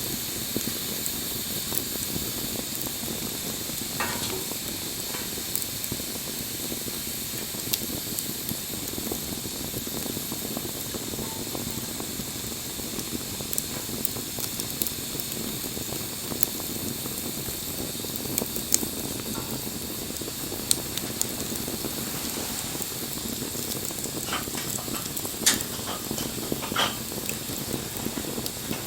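Bonfire burning with a steady hiss and scattered crackles and pops, with a cluster of louder pops near the end.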